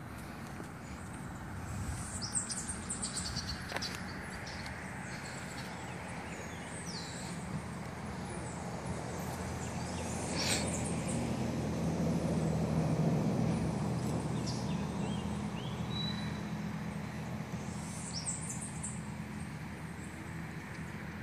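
Birds chirping in short scattered calls over a low steady hum that swells and fades around the middle, from a vehicle passing on the road.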